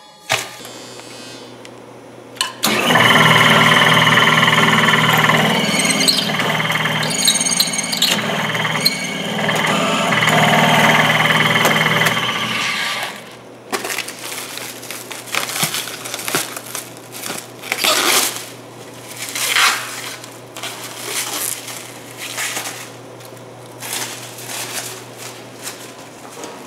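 A power drill runs loud and steady for about ten seconds, with a squealing edge, boring into a solid stainless steel wheel rim. It cuts off, and irregular knocks and handling rustles follow over a low steady hum.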